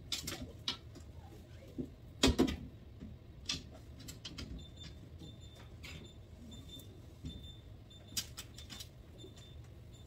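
Knocks and clicks of glass shelves and containers being handled inside an open refrigerator as its shelves are wiped down, the loudest clatter a little over two seconds in. From about halfway through, a faint high beep repeats in short irregular pulses.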